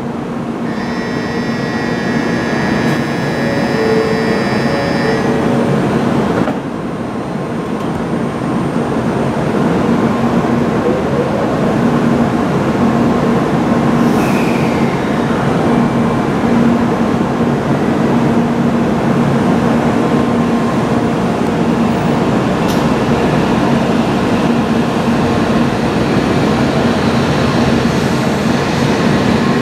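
N700A Shinkansen train pulling out of a station, its running noise growing slightly louder as it gets under way. For the first few seconds, steady high electronic tones sound over it and then stop.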